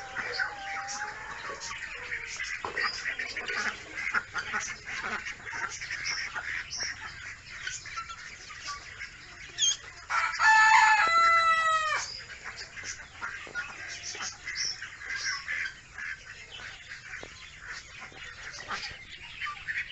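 A flock of ducklings peeping steadily in many short high chirps. About ten seconds in, a rooster crows once, a crow of about two seconds that is the loudest sound.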